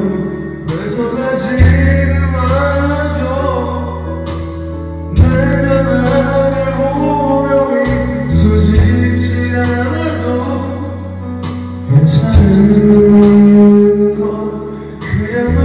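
A man singing a Korean pop ballad over a karaoke backing track, with long held bass notes under the melody.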